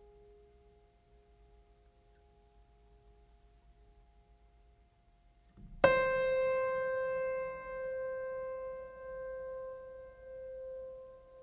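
Background music: faint sustained tones, then about halfway through a single piano note struck sharply that rings on and slowly fades.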